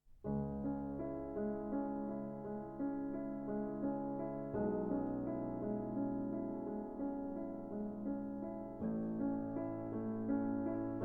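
Background music: piano or electric-piano chords, with the chord changing about halfway through and again near the end.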